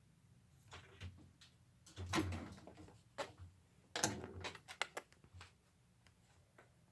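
A run of knocks, thumps and clatters, loudest about two and four seconds in.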